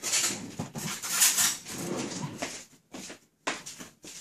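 Dishes and utensils clattering, with a run of short, sharp knocks of plates and cutlery in the second half.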